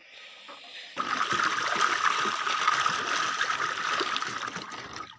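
Water splashing and pouring out of a net-covered fish trap as it is hauled up out of the water. It starts suddenly about a second in and eases off near the end.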